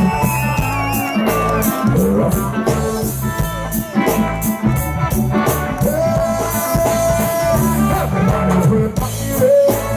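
Live reggae band playing an instrumental passage: a steady bass line under a lead instrument holding long melodic notes.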